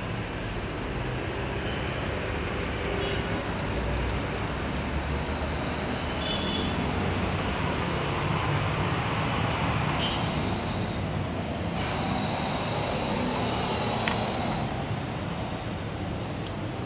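A steady rumble and hiss of background noise, with a few faint clicks as small plastic toy kitchen pieces are handled.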